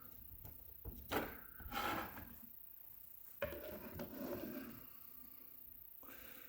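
Handling noise: a tray being moved and set down, with knocks and rattles from small lock parts, in two short bursts about a second in and about three and a half seconds in.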